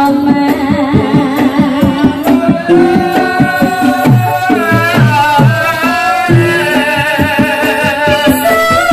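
Live Javanese ebeg (kuda kepang) accompaniment: kendang hand drums beating a steady, busy rhythm under a singing voice with vibrato and pitched gamelan notes.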